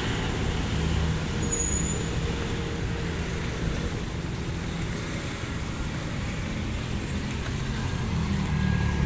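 Road traffic: cars and motor scooters running past, a steady low rumble.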